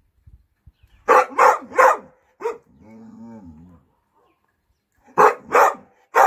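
American Staffordshire terrier barking in two bursts: three sharp barks about a second in and a fourth soon after, a quieter drawn-out whine, then three more barks near the end. It is shut in its kennel and hungry, protesting before its feed.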